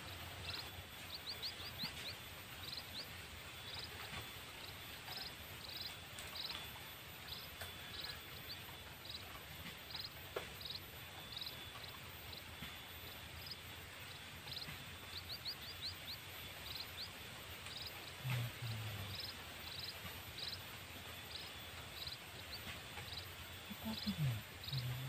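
Rural outdoor ambience: a high, short chirp repeated about twice a second, twice breaking into a quick run of four, over a faint steady hiss. A brief low sound comes about 18 seconds in and again near the end.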